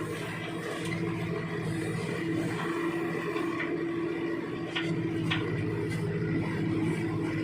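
Diesel engine of heavy earthmoving machinery running steadily at working speed. Two short sharp clicks come a little past the middle.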